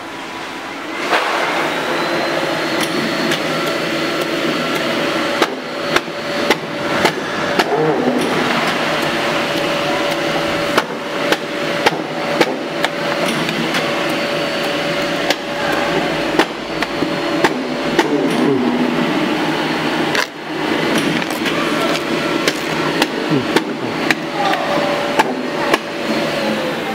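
Wuhao WH-533 automatic paper creasing machine running: a steady motor-and-roller hum, with repeated sharp clacks as sheets are fed through and creased. The hum starts about a second in and drops out briefly about two-thirds of the way through.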